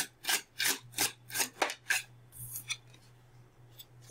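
A deck of tarot cards being shuffled by hand: a quick run of swishes of cards sliding against each other, about three a second, fading out after about two seconds.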